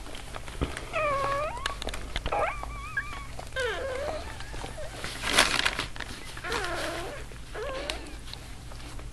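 Newborn Labradoodle puppies crying: about five thin, high squealing cries that dip and bend in pitch. A short, louder scuffling noise comes about halfway through.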